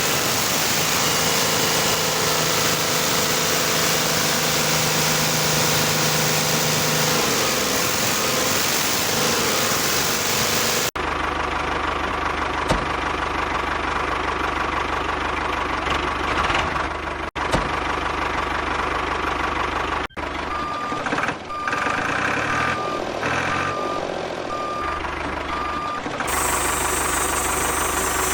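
Vehicle engine running steadily, cut together from several takes, with a reversing beeper sounding about six even beeps in the second half.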